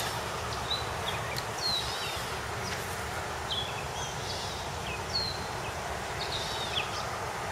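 Small birds chirping, with many short call notes scattered throughout, over a steady outdoor background hiss.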